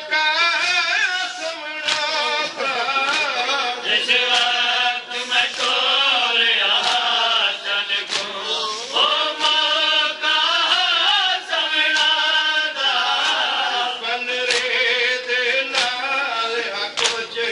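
Male voices chanting a Saraiki noha, a Shia lament for the martyrs of Karbala, with sharp chest-beating slaps of matam keeping time about once a second.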